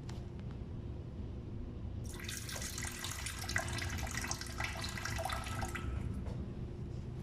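Water running and splashing for about four seconds, starting about two seconds in, over a low steady hum.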